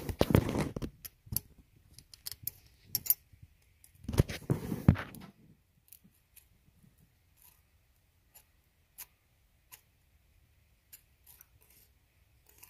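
Hands handling the metal inspection-hatch cover on a flywheel housing: two short bursts of rubbing and scraping, then scattered light metallic clicks.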